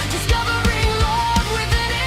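Industrial rock/metal music: a fast, steady kick-drum beat, about three hits a second, under a wavering melodic lead line.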